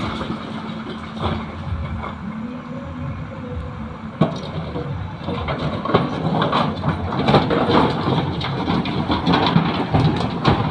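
JCB 3DX backhoe loader's diesel engine running as it works the bucket over a loaded tipper truck. A steady hum holds for the first few seconds, a sharp knock comes about four seconds in, and uneven clattering knocks run through the second half.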